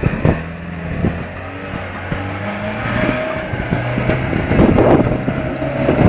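A 4x4 pickup truck's engine running under load as it climbs a loose chalk slope, its note shifting in steps and growing louder, with a few knocks in the first second.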